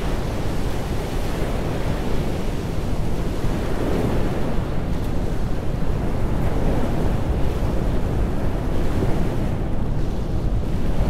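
Steady rush of a ship's wake churning the open sea, with wind buffeting the microphone.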